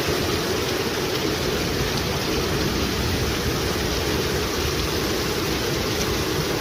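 Floodwater rushing and churning in waves across a street: a loud, steady roar of moving water.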